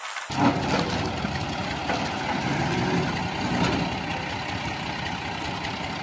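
Al-Ghazi Fiat 480 tractor's diesel engine idling steadily.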